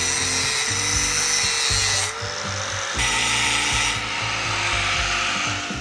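Angle grinder cutting a notch into the steel square-tube boom of a truck crane: a steady abrasive grinding hiss over the motor's whine, easing briefly about two seconds in as the disc bites less.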